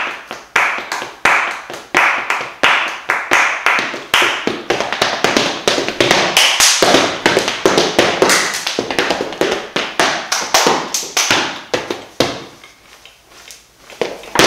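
Flamenco palmas: a man clapping a rhythm, spaced out at first, then quickening into fast, dense clapping, thinning near the end and closing with one sharp, loud clap.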